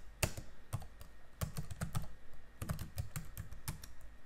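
Computer keyboard typing: quick runs of keystrokes with short pauses between them, as a terminal command is keyed in.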